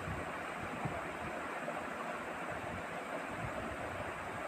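Hands kneading soft, sticky bread dough in a steel bowl: faint, irregular low thumps over a steady background hiss.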